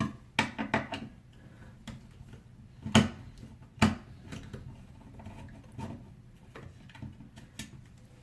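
Hand tools and metal faucet parts clicking and knocking at a sink: a quick run of clicks, two louder knocks about three and four seconds in, then light scattered ticks.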